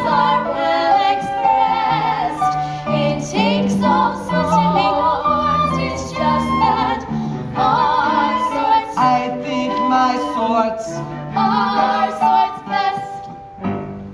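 Female voices singing a show tune from a stage musical with vibrato over sustained accompaniment; the song ends near the end.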